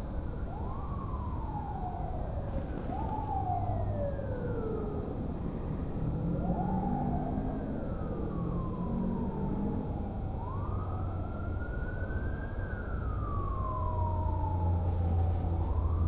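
Distant emergency-vehicle sirens wailing in slow rising and falling glides, at times two at once, over a steady low city hum. This is the ambient city soundscape of a virtual skyscraper environment.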